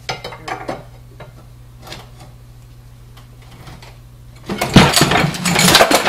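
Cast iron frame of an old Chandler & Price platen press being worked with a long steel pry bar: a few metallic knocks and scrapes, then about four and a half seconds in a loud clattering rumble as the heavy frame tips over onto the wooden pallets.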